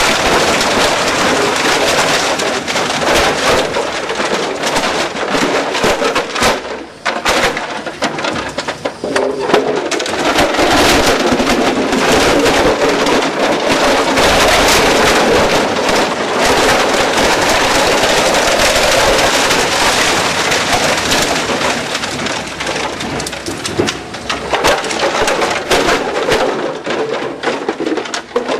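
Heavy-duty nylon buckets being shredded in a Cumberland CXS 1200 shredder: a loud, dense crackle of plastic cracking and snapping in the rotor's cutters, with a brief lull about seven seconds in.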